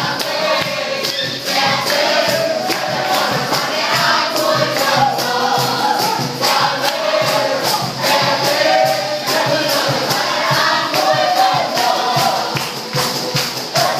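A group of people singing an upbeat song together over a steady percussive beat.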